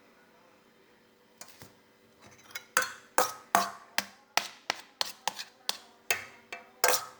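A utensil clinking against a dish: about a dozen sharp clinks, two or three a second, starting sparsely and coming faster after about two and a half seconds, as spoonfuls of agar-agar jelly are cut and scooped.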